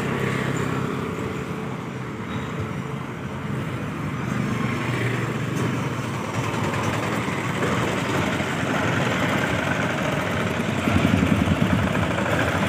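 Street traffic: engines of motorcycles, scooters and auto-rickshaws running steadily as they pass, a continuous hum, a little louder near the end.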